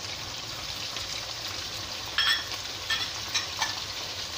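Shrimp, onion and garlic frying in oil in a wok, a steady sizzle, as oyster sauce is poured in. A few sharp ticks come over the second half.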